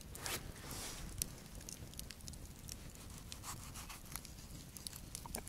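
Wood campfire crackling with scattered small snaps, along with a kitchen knife cutting through tomatoes.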